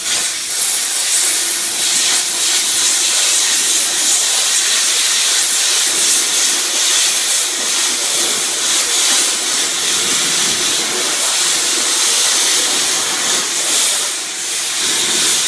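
Plasma cutter cutting steel plate: a loud, steady hiss of the compressed-air arc, with a brief dip near the end as the torch moves.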